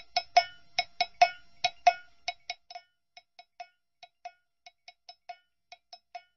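A run of short, ringing, bell-like percussion taps on one fixed pitch in an uneven quick rhythm. They are loud for the first two seconds, then turn faint and sparser at about three taps a second.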